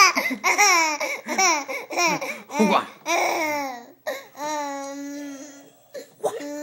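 A baby laughing in a quick string of short giggles that fall in pitch, then a few longer drawn-out calls.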